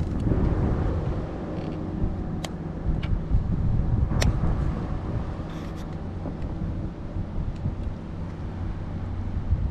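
Wind buffeting the microphone in a low rumble, with a faint steady hum underneath and two sharp clicks a little under two seconds apart in the first half.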